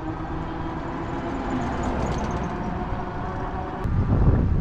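Electric bike climbing a hill under level-5 pedal assist: a steady motor whine over tyre and road rumble. A click sounds near the end, then wind buffets the microphone.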